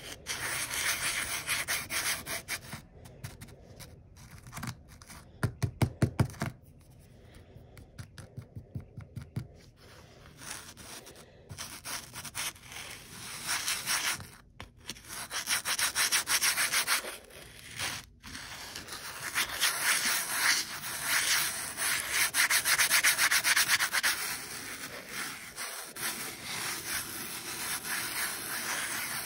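Fingers pushing and rubbing polished stones through a thin layer of sand on a paper plate: a gritty scraping that comes in uneven strokes, quieter for a few seconds near the first third and loudest in the later part.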